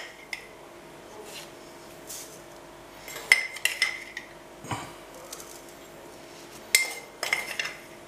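Metal spoon clinking and scraping against a china cup while salt is spooned out, in short sharp clinks that ring briefly, a cluster a little before halfway and another near the end.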